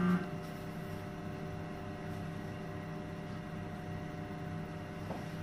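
Steady hum of the equipment in a fluoroscopy room: several constant tones over a low drone, with no other event standing out.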